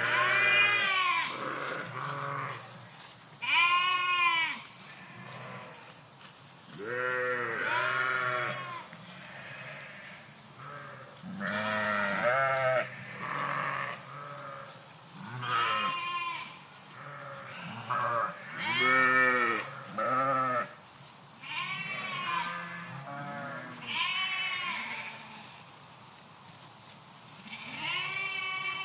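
Flock of sheep bleating, many animals calling one over another at different pitches, a call every second or two.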